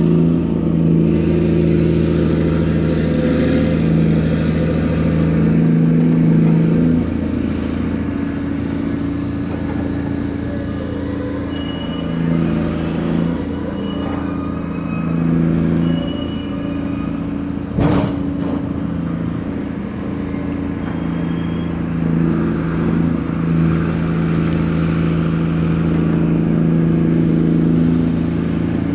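Diesel engine of a gut ship's grab crane running under changing load during cargo handling, its note shifting as the work goes on, with brief high squeaks and a single sharp knock about two-thirds of the way through.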